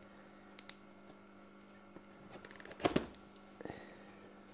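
Handling of a cardboard package: a couple of faint clicks about a second in, then a louder knock and rustle about three seconds in and a smaller one shortly after, over a low steady room hum.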